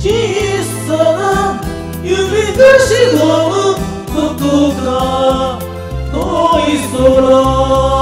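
Several amateur voices singing a Japanese pop ballad in unison over a karaoke backing track, the sung melody wavering and rising and falling in short phrases.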